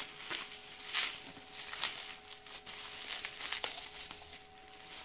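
Plastic bubble wrap crinkling and rustling in the hands as a ceramic mug is unwrapped, in irregular crackly bursts that die down near the end.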